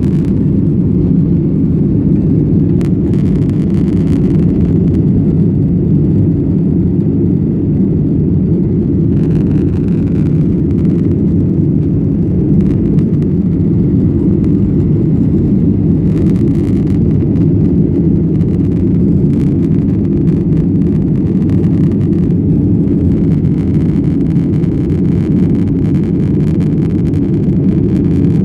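Airliner's engines running steadily, a loud, even rumble heard from inside the passenger cabin.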